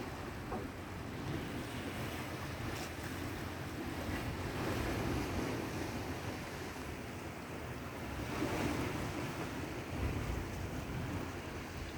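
Sea waves washing, with wind buffeting the microphone and a low rumble, swelling and easing a couple of times.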